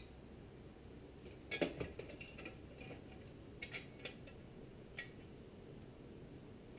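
Light handling knocks and clicks as a small-engine muffler and its gasket are picked up and held against the engine: a short cluster of knocks about a second and a half in, then three single sharp clicks over the next few seconds.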